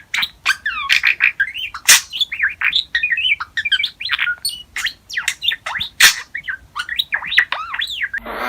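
Pet parrot chirping and whistling: a quick, continuous run of short calls that swoop up and down in pitch, with a few sharp clicks mixed in.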